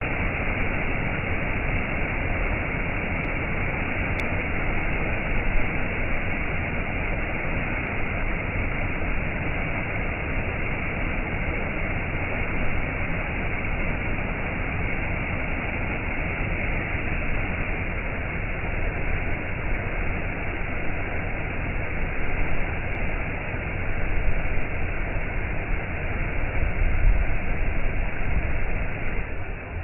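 Steady rushing of running water, an even unbroken hiss that swells a little near the end.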